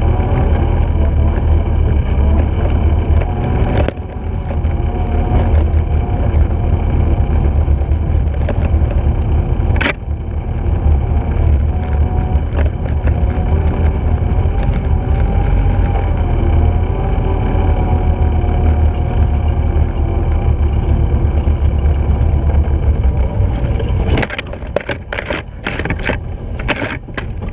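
Steady low rumble of a wheeled dog-training rig rolling fast over a dirt trail, pulled by a team of sled dogs. Near the end the rumble falls away into a run of sharp rattles and clicks as the rig goes over rougher, leaf-covered ground.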